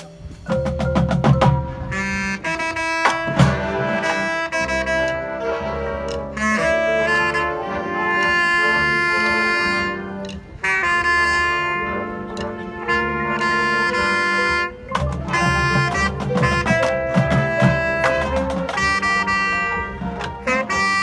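High school marching band playing in full: brass sustaining chords over drum hits, with a couple of brief drops in level between phrases.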